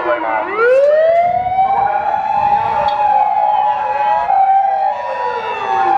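Fire apparatus sirens wailing on an emergency run: one siren winds up steeply about a second in, holds its pitch, then slowly winds down near the end, with a second siren overlapping it.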